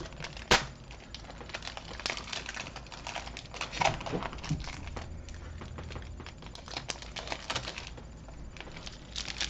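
Foil wrapper of a Pokémon trading card booster pack crinkling and crackling as it is handled and opened, with one sharp click about half a second in.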